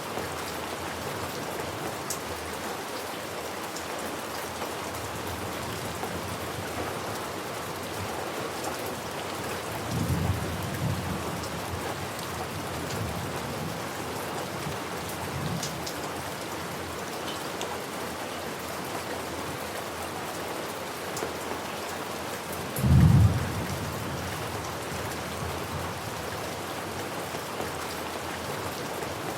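Steady rain falling, with thunder rumbling twice: a low rumble about a third of the way in and a louder, sharper clap of thunder about three quarters of the way through.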